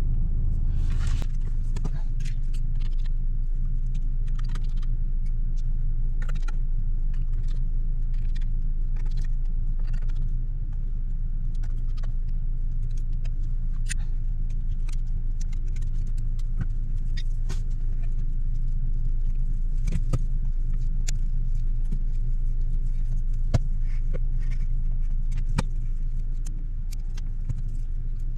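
Vehicle engine idling with a steady low hum, with many small, sharp clicks and taps of repair tools on a phone scattered throughout.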